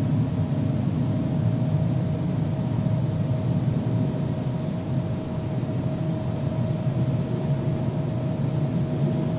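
Loud unexplained rumbling noise in the sky: a steady low drone with a faint steady hum above it, like a distant jet engine.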